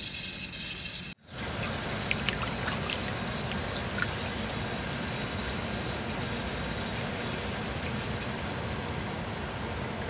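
Hot-spring water flowing and trickling in an outdoor foot bath, a steady rush that starts after a brief silence about a second in, with a few small splashes from feet in the water over the next couple of seconds.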